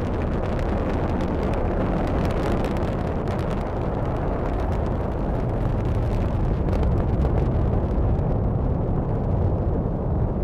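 Atlas V rocket's RD-180 first-stage engine in powered ascent: a steady, deep rumble with crackle, growing a little louder in the second half. The engine is running normally.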